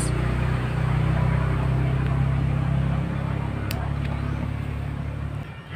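Low, steady engine hum, as of a motor vehicle idling, that cuts off abruptly near the end. A single sharp click about two-thirds of the way through.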